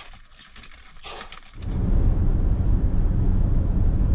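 A few soft slurping and rustling eating noises, then about a second and a half in a loud, steady low rumble of road and engine noise inside a moving car's cabin takes over.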